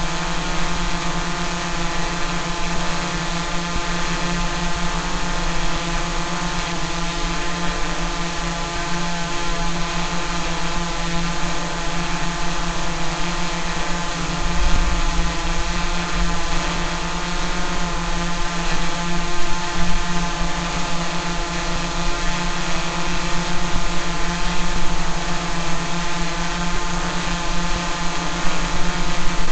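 Multirotor drone's propellers buzzing steadily at an even pitch, a dense whine with many overtones, swelling slightly louder about halfway through.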